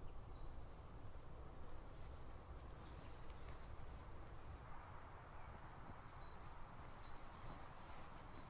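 Quiet woodland ambience: a faint steady hiss and low rumble, with several short, thin, high-pitched bird calls scattered through.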